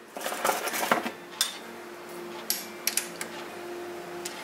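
Metal clinks and knocks as a stainless steel bar is shifted by hand against the jaws of a lathe's three-jaw chuck while it is being centred. There is a quick cluster in the first second, then single sharp clicks every second or so.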